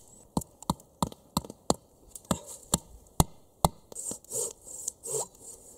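Small hatchet striking a wooden stake in sharp, short knocks, about two or three a second. About four seconds in this gives way to the rasping back-and-forth strokes of a Gomboy folding pruning saw cutting through the green wood.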